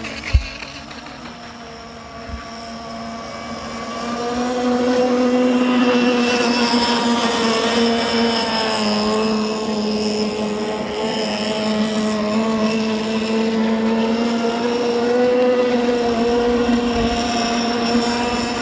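The CMB 26cc two-stroke engine of an RC racing boat, fitted with a tuned header and stinger exhaust, running flat out with a steady high-pitched drone whose pitch wavers slightly. It grows louder about four seconds in as the boat runs closer. A single sharp thump comes just after the start.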